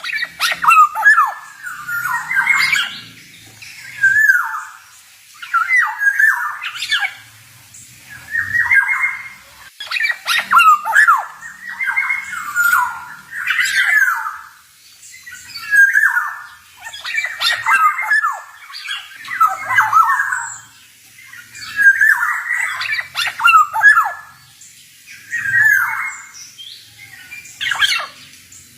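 Male black-naped oriole singing: short whistled phrases repeated about every two seconds, mixed with sharp, harsh notes.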